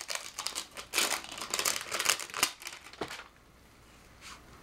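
Packaging of a hair-product sample pack crinkling and crackling as it is handled and torn open by hand, in dense rustles that stop about three seconds in.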